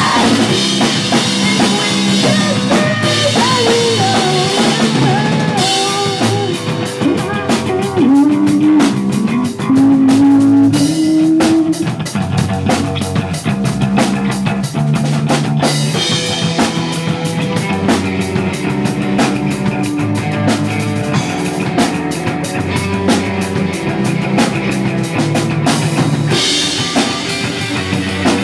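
Pop punk band playing live at full volume: a drum kit beating steadily under electric guitar and bass, with a sliding melodic line about a third of the way in.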